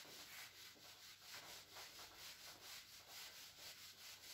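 Faint rhythmic rubbing of a whiteboard eraser wiping marker off the board in quick back-and-forth strokes, about three a second.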